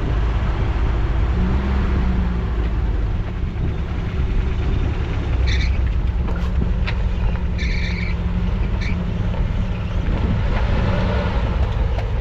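Off-road truck engine running at low speed with a steady low rumble, as when crawling over a rough trail. A few short high-pitched squeaks come through about halfway in.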